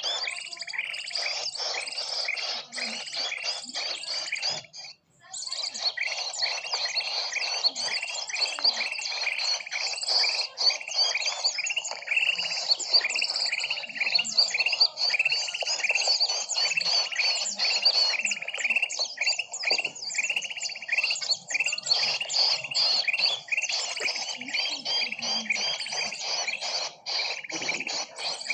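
A dense chorus of small birds chirping rapidly and continuously, a bird-lure (pikat) recording played to draw birds in. It cuts out for a moment about five seconds in, then carries on.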